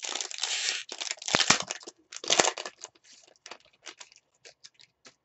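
Foil trading card pack wrapper being torn open and crinkled by hand. The loudest tear comes about two seconds in, then lighter crinkles tail off.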